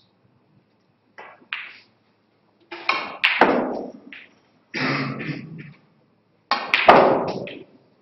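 Snooker balls and cue: sharp knocks and thuds, in three main bursts about three, five and seven seconds in, each trailing off over up to a second.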